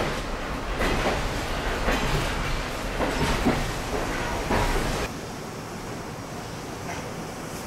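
Heritage railway passenger coach rolling along the track, heard from inside: a steady rumble with irregular clacks and knocks from the wheels and carriage. About five seconds in it changes abruptly to a quieter, steady hiss of wind and rolling heard at the open window.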